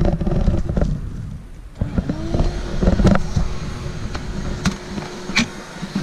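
Shop vacuum motor spinning up about two seconds in, its whine rising then holding steady while it runs, with scattered knocks and clicks. Low rumbling and knocks come before it starts.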